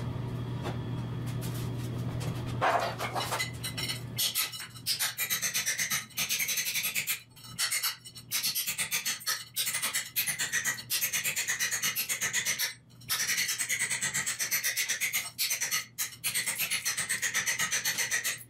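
Steel pry bar scraping and chipping hardened old tile mortar off the floor in quick rasping strokes, about five or six a second, in runs of a second or two with short pauses, starting about four seconds in.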